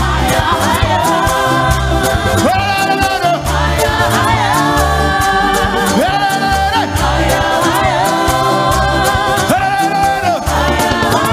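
Live gospel praise music: a lead singer and a group of backing singers over a band with keyboard and a steady, driving beat.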